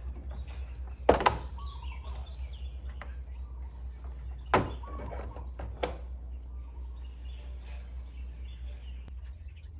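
A few sharp knocks: two close together about a second in, a louder one about four and a half seconds in and a lighter one near six seconds. They sit over a steady low hum, with faint bird chirps.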